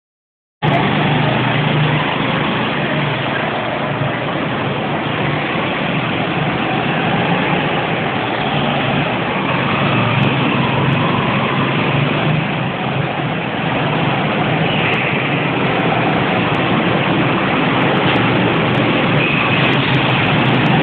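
Go-kart engines running as several karts lap the track, a steady loud drone in an enclosed concrete hall, starting about half a second in.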